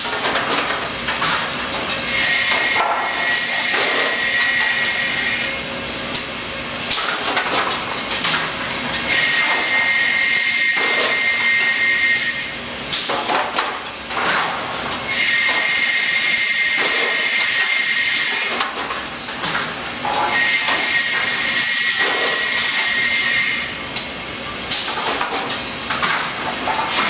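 Automated rip saw line running, with knocks and clatter of boards on the infeed. A high steady whine comes in four times, each about three seconds long, as boards go through the saw.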